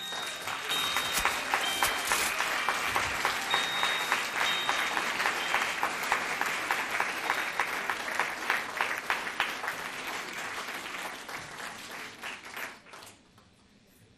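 Audience applause that breaks out as the music ends, holds steady and dies away about thirteen seconds in.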